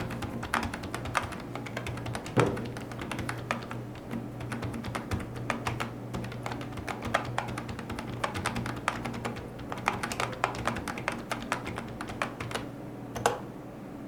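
Typing on a keyboard: a quick, uneven run of key clicks and taps, with one louder knock about two seconds in.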